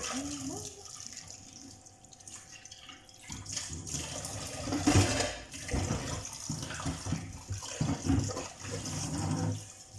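Kitchen tap running into the sink while dishes are washed, with knocks and clatter of plates and utensils. The water and clatter grow louder about three and a half seconds in, with the loudest knock about five seconds in.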